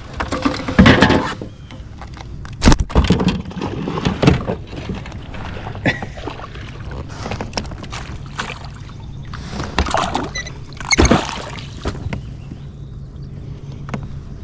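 A northern pike flopping on a kayak, making irregular knocks and thumps against the hull, over a steady low hum.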